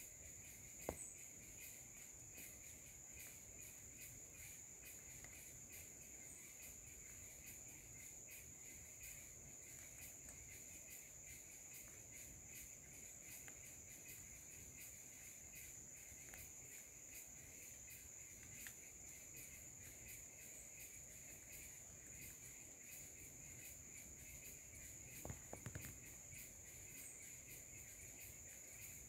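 Faint, steady chorus of insects trilling on a high note, with a lower trill beneath it. A single soft tap about a second in and a few soft knocks near the end.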